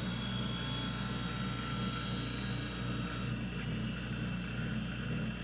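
Skate sharpening machine's hollow-grinding head running with a steady motor hum, its freshly dressed new wheel spinning. A skate blade is drawn across the wheel in a grinding pass, a high hissing grind that stops about three seconds in; it is a first pass to see where the wheel is hitting the blade.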